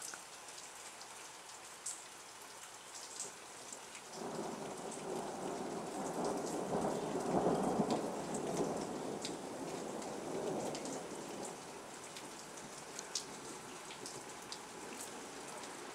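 Steady rain falling, with raindrops ticking close by. About four seconds in, thunder rumbles in suddenly, swells to its loudest a few seconds later and slowly fades away.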